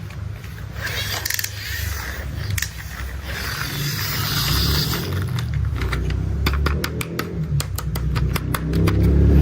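Plastic toy construction vehicles being handled: wheels rolling with a low rumble and some scraping, then a quick run of tapping clicks, about six a second, through the second half.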